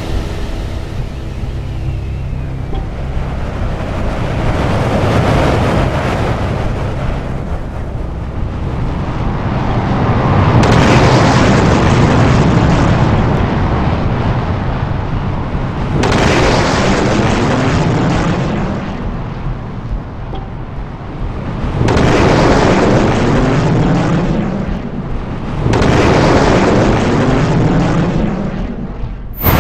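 Sound effects of very fast vehicles rushing past: jet-like roaring and wind rush that cuts in louder and suddenly about four times, each section sweeping in pitch as the vehicle passes.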